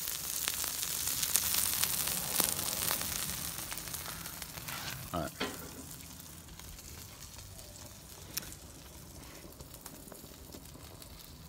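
Sausage slices and scrambled eggs frying on a Blackstone flat-top griddle: a steady sizzle that is loud at first and dies down after about five seconds. A few sharp clicks sound over it.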